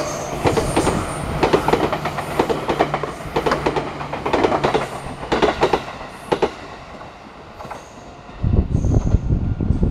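A train running past, its wheels clacking over rail joints in uneven groups for about six seconds before the sound dies down. A low rumble comes in about eight seconds in.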